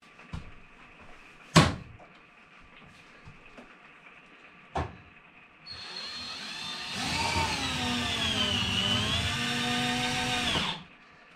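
Handheld power drill driving a screw up into the microwave's mounting: its motor whines for about five seconds, the pitch sagging as the screw bites and then recovering, and stops suddenly. A few sharp knocks come before it, the loudest about a second and a half in.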